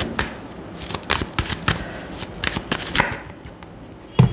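Tarot deck being shuffled by hand: a run of quick, irregular card clicks that thins out after about three seconds, followed by a single dull thump near the end.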